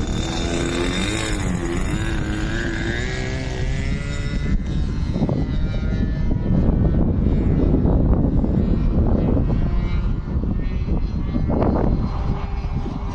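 Radio-controlled aerobatic model airplane's propeller engine running, its pitch wavering up and down in the first few seconds as it flies. From about four seconds in, wind buffeting the microphone rumbles over it, and the engine stays faintly audible underneath.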